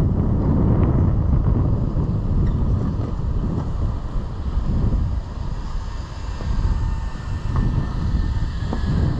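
Wind buffeting the microphone during a longboard ride: a loud low rumble that rises and falls, easing briefly around the middle.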